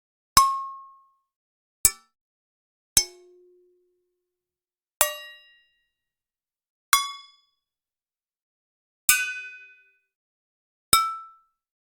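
Metal pans struck one at a time: seven clangs spaced one to two seconds apart, each ringing briefly at its own pitch before dying away.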